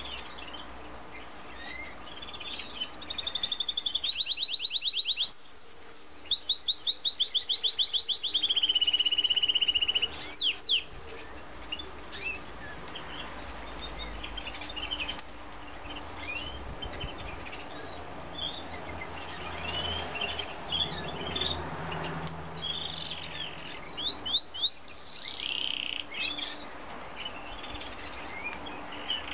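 Yorkshire canary singing: a run of fast trills and rolled notes in the first ten seconds, loudest, then softer scattered chirps and a brief burst of quick notes near the end.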